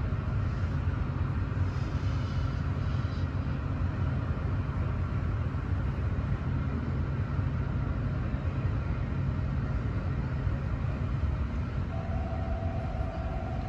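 Automatic tunnel car wash running as a school bus goes through, a steady low rumble muffled by the viewing window's glass. A short steady tone sounds near the end.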